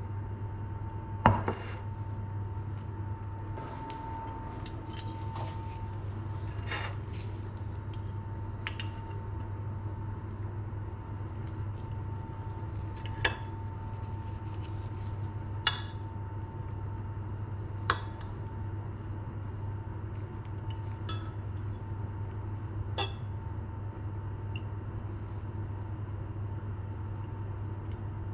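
Metal fork and knife clinking and scraping on a ceramic plate as food is cut and picked up. There are a few sharp clinks spread out, the loudest about a second in, over a steady low hum.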